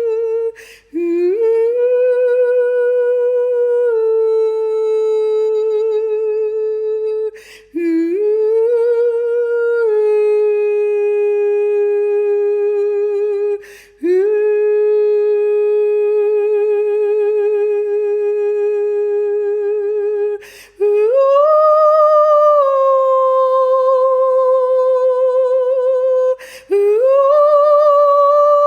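A solo woman's voice singing wordless long held notes with vibrato, unaccompanied, each note scooping up at its start and held for several seconds, with short breaths between; the notes step higher about two-thirds of the way through.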